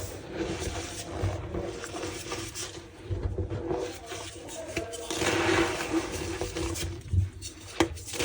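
A block of reformed gym chalk being squeezed and crushed by hand, squeaking and crumbling, with two sharp cracks near the end.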